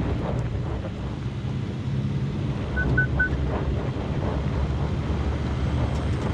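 Pickup truck's engine running steadily under load, heard from inside the cab, as its off-road crawl control works to climb out of a hole on a steep slope. Three quick high-pitched beeps sound about three seconds in.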